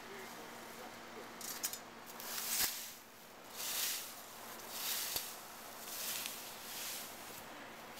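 Leaf rake dragged through dry fallen leaves on grass: about five swishing strokes, roughly one a second, starting about two seconds in.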